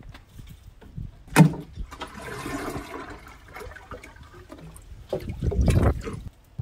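Rainwater being drawn into a watering can: a sharp knock just over a second in, a short rush of water, then a louder, deeper rush of water near the end.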